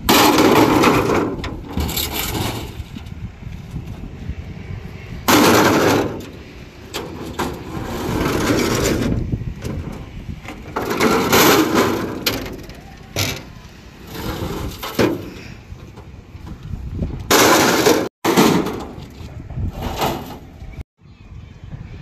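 Steel formwork shuttering plates being thrown down onto a pile, a loud metallic crash and clatter every two to three seconds.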